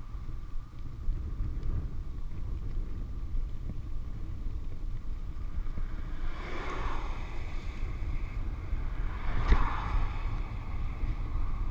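Steady wind rumble on a handlebar-mounted camera's microphone as a touring bicycle rolls downhill, with two cars passing the other way, their tyre hiss swelling and fading about halfway through and again, louder, near the end.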